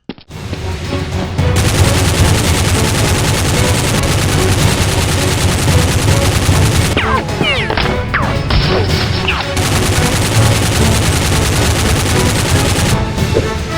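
Sustained rapid gunfire, a dense continuous volley of shots over background music. It builds up in the first second or two after a brief cut-out and eases near the end.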